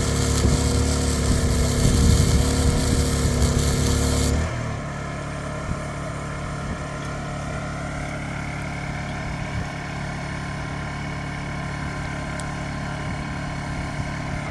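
An engine running steadily at an even pitch. It is loud with a hiss for about four seconds, then drops abruptly to a quieter, steady drone.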